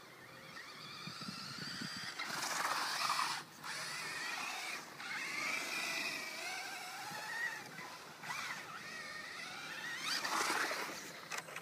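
Vaterra Glamis RC buggy's brushless electric motor whining at high speed, the pitch rising and falling with the throttle. The whine builds over the first two seconds and cuts out briefly several times as the throttle is let off.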